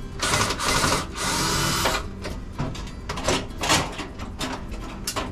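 Cordless drill-driver running in two short bursts in the first two seconds, backing out the last screw that holds a kitchen range hood to the wall. After that come a few light knocks and clicks.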